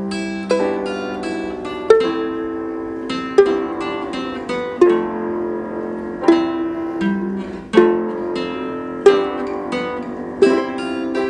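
Background music on a plucked string instrument, slow notes and chords struck about every second and a half and left ringing.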